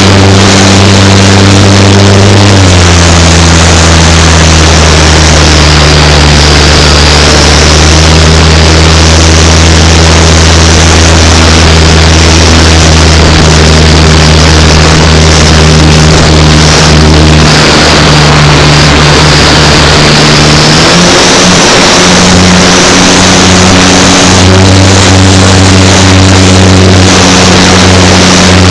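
Loud wind noise buffeting the microphone of a camera riding a turning windmill sail, over a steady low hum that drops in pitch about two and a half seconds in and rises again about three-quarters of the way through.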